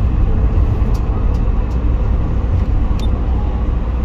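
Steady low rumble inside a moving van's cab, from its engine and the road.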